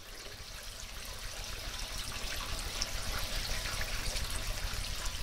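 Small mountain brook rushing over stones, a steady splashing hiss with a low rumble underneath, growing louder over the first couple of seconds.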